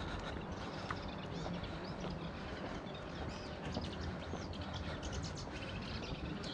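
Footsteps on rocky ground with birds chirping, many short high clicks and chirps over a steady low rumble.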